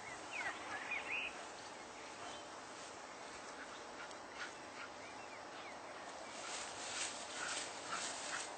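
Open-air background hiss with a few short high chirping calls about half a second to a second in, and a run of short sharp clicks in the last two seconds.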